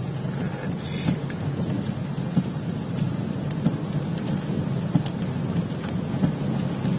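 Heavy rain falling on a car's roof and windscreen, heard inside the cabin: a steady low rush scattered with many sharp ticks of drops striking.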